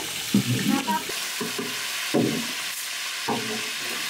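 Pangas fish pieces deep-frying in a large steel pan of oil, a steady sizzle, with metal slotted ladles stirring and scooping the fish a few times.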